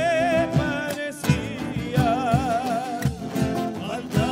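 Live folk band playing: a man sings with a wide vibrato over strummed acoustic guitars and a steady drum beat.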